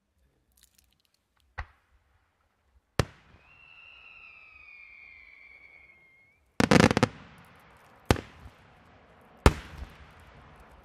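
Aerial firework shells going off: two sharp bangs, then a whistle about three seconds long that falls slightly in pitch. About six and a half seconds in comes a loud rattle of reports as shells break, followed by two more single bangs.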